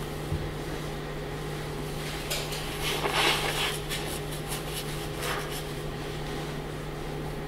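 Room tone with a steady low electrical hum, and a short cluster of brief noises about three seconds in, with another near five seconds.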